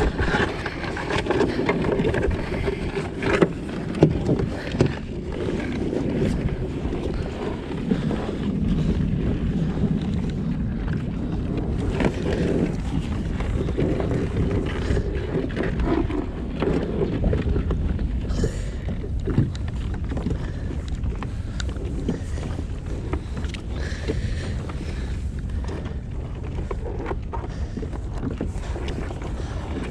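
Wind rumbling on the microphone and water sloshing around a kayak on open water, with a few sharp knocks against the boat scattered through it.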